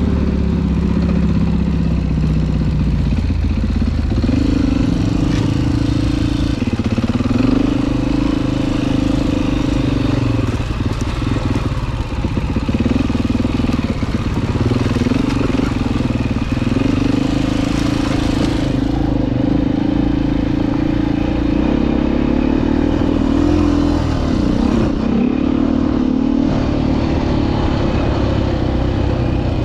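Single-cylinder four-stroke dirt bike engine running under way, its revs rising and falling several times as the throttle opens and closes.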